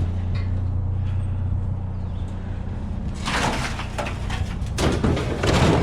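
GMC Sonoma pickup's engine idling steadily, then from about three seconds in a run of loud scraping, rattling noises over it.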